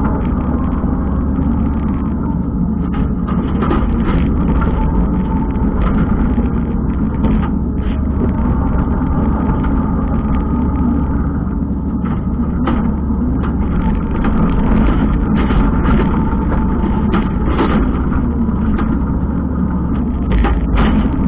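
Kubota skid steer's diesel engine running steadily under work, with scattered clicks and rattles over it.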